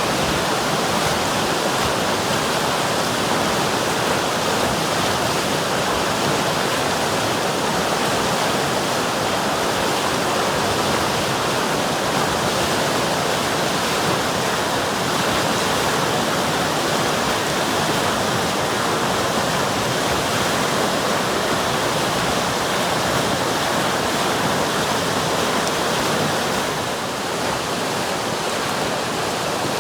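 River water rushing over rocks: a steady, even rush of flowing water, dipping slightly in loudness near the end.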